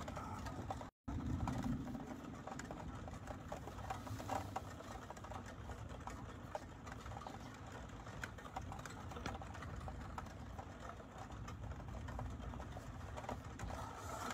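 Thunderstorm ambience: a steady low rumble under many light, irregular ticks. The sound cuts out briefly about a second in.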